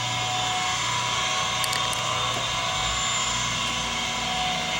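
Skid-steer loader (Bobcat) engine running steadily, a constant drone with several steady whining tones.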